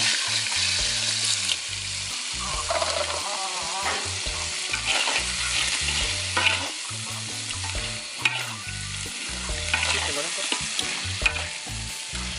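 Fried fish being stirred into chili balado sauce sizzling in a wok. A metal spatula scrapes and knocks against the pan again and again over the steady sizzle.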